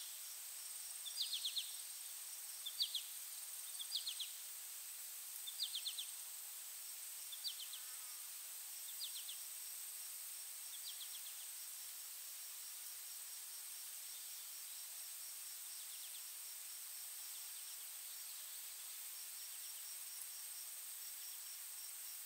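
Outdoor nature ambience: a steady high insect drone, with short trilled chirps repeating about every one and a half seconds that die away about halfway through.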